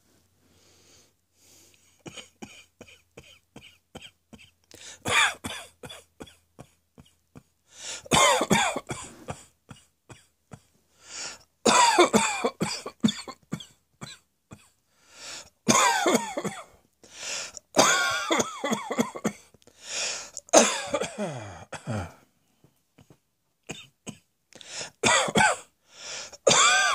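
A person coughing over and over. It starts about two seconds in with a run of small, quick coughs, then turns to louder, harsh, throaty coughing in bouts of several coughs each.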